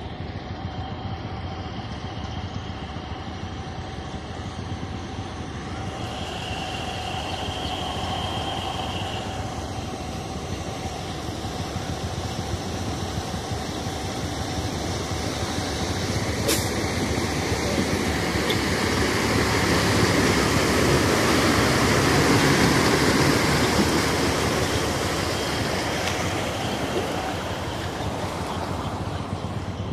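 A motor running as a vehicle pushes through knee-deep floodwater on a road, with water washing and splashing around it; the wash swells louder about two-thirds of the way through, then eases.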